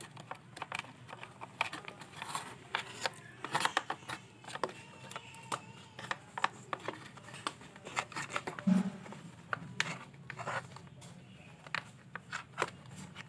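Irregular small clicks, taps and rubbing as a new rubber power cord and its grommet are worked by hand into the plastic housing of a Biosafe high-pressure cleaner during a cable replacement.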